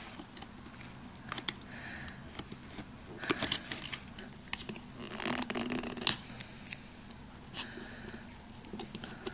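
Scalpel blade scraping and picking 3M adhesive foam off a plastic GoPro mount base: short scrapes and small clicks, with louder scraping spells about three and five seconds in and a sharp click at about six seconds.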